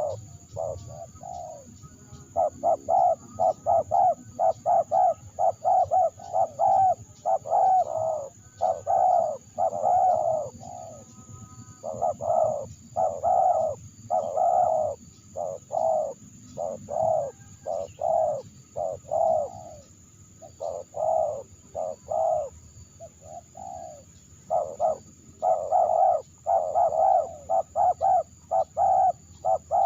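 Spotted dove (terkukur) cooing over and over in quick runs of short notes, broken by brief pauses.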